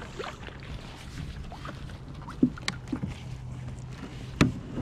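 Knocks of a paddle and gear against a fishing kayak's hull: a couple of sharp knocks midway and a louder one near the end, over a faint steady low hum.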